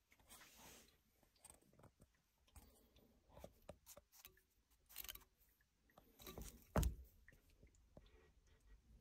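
Faint handling noise: scattered small clicks and rustles, with one louder knock about seven seconds in.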